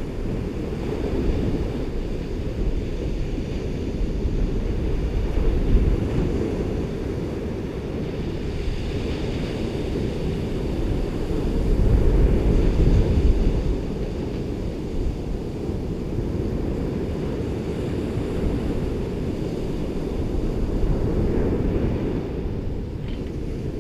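Ocean waves breaking and washing up a beach, a continuous surf rumble that swells about five seconds in and again, more strongly, about halfway through, with wind buffeting the microphone.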